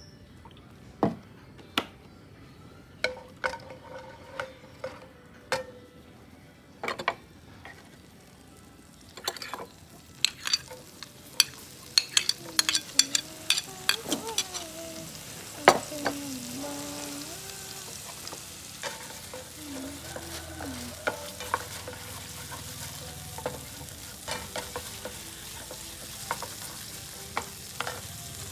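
Cooking oil sizzling and crackling in a frying pan on a gas burner, with sharp taps and clicks of a spatula against the pan. Only scattered clicks come at first; about nine seconds in the sizzle becomes dense and steady.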